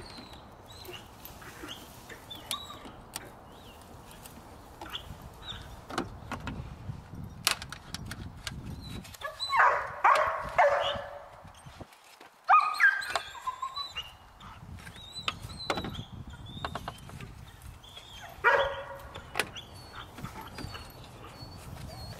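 Plastic air filter housing and intake duct being worked loose by hand and with a screwdriver: scattered clicks and knocks, with three bursts of loud, pitched squealing about ten, thirteen and nineteen seconds in, the middle one falling in pitch.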